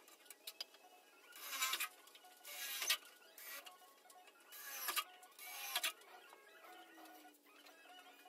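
Cordless drill run in several short bursts, the motor winding down after each one.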